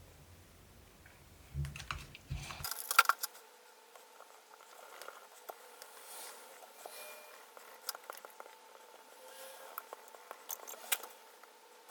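Small hand tools working on an opened laptop: scattered light clicks, taps and scraping, with a sharp cluster of clicks about three seconds in, over a faint steady hum.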